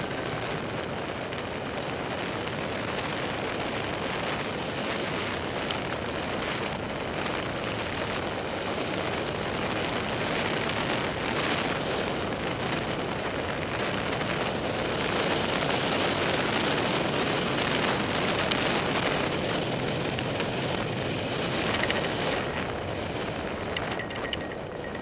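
Airflow rushing over a hang glider–mounted camera's microphone in flight: an even hiss that grows louder about two-thirds of the way through, then eases near the end as the glider flares and slows to land.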